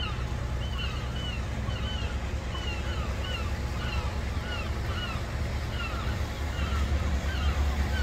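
A steady low rumble of harbour-side outdoor noise, growing stronger near the end. Over it, short high chirps repeat about twice a second.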